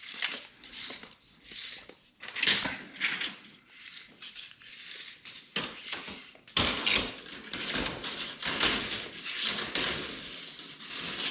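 Irregular scuffs, clicks and rattles of a tape measure being pulled out and handled along a wall, busier from about two thirds of the way through.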